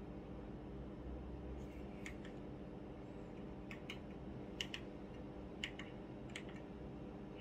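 Buttons of a TV remote control pressed in a string of short, sharp clicks, singly or in quick pairs, over a steady low electrical hum.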